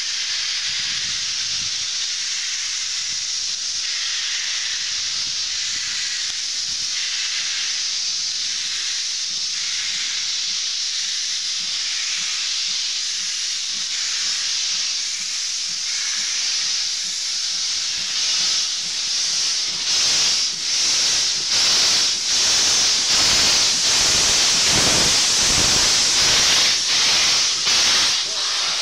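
Steam tank locomotive hissing steam steadily. From about two-thirds of the way in come regular exhaust chuffs, about one a second, as it moves the train, louder as the coaches pass close.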